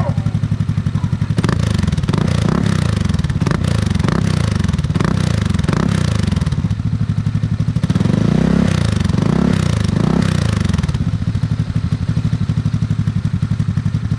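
Honda Click 160 scooter's single-cylinder engine idling through an aftermarket Akrapovic-style exhaust whose silencer insert has been cut short, leaving a deep but not very loud note. From about one and a half seconds in, the throttle is blipped several times, the revs rising and falling, strongest around eight to ten seconds. Near the end it settles back to a steady idle.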